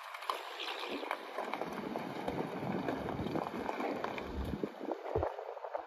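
2007 Chevrolet Colorado pickup driving slowly and turning on a gravel lot, its tyres crunching over the loose stones.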